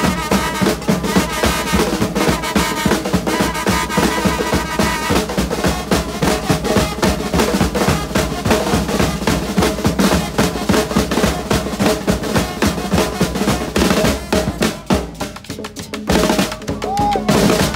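Carnival band drum section of snare drums and a larger drum playing a fast, driving mambo rhythm, with held horn notes over it for the first few seconds. The drumming drops away briefly near the end, then picks up again.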